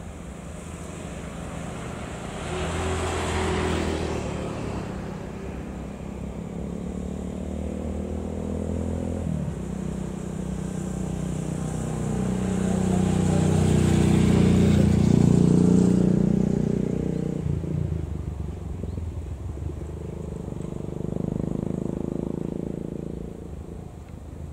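Diesel locomotive's engine running as it hauls a freight train past at a crawl, its note shifting a few times and loudest about halfway through.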